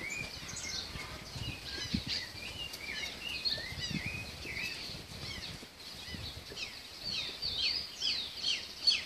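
Several small birds chirping and twittering, quick rising and falling calls overlapping one another throughout, getting busier near the end.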